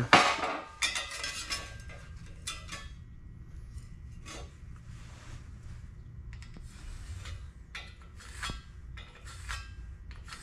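Light metal clinks and short scrapes of a square and marker being handled against a piece of steel on a steel welding table while cut lines are marked out, opening with one louder clank.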